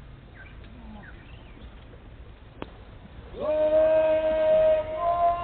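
Faint chirps and a single click over a quiet background, then about three seconds in a group of voices comes in loudly, singing a held chord that shifts to a new chord near the end.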